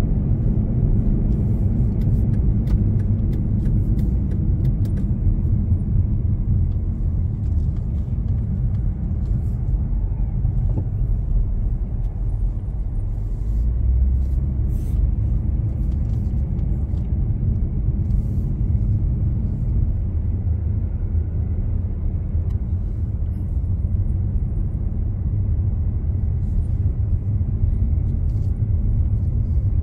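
Steady low rumble of a car driving on a town road, engine and tyre noise, with a brief swell in the rumble about halfway through.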